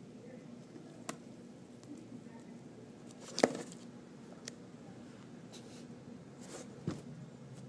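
A few short, sharp clicks and taps of small repair tools and parts being handled while a small part is removed from an iPhone 5, the loudest about three and a half seconds in, over a low steady hum.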